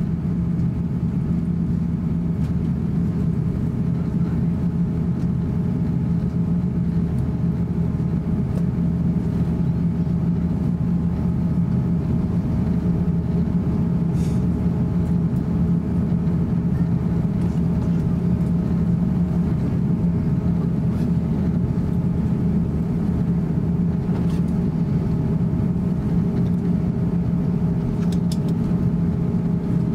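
Cabin noise of an Airbus A350-900 taxiing: a steady low hum of its Rolls-Royce Trent XWB engines at taxi power and the cabin air, heard from inside the cabin, with a few faint clicks.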